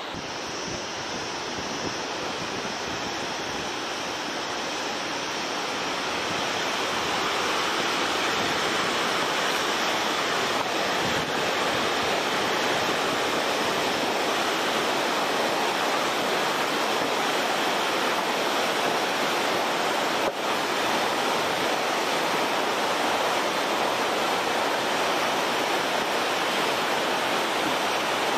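Rushing river water below a footbridge, a steady rush that grows louder over the first several seconds and then holds level.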